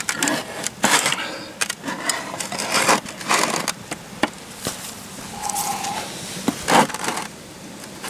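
Tin can being opened with a hand-held lever can opener: a run of rough metal crunches and scrapes as the blade cuts around the lid, then quieter scraping of metal on the tin.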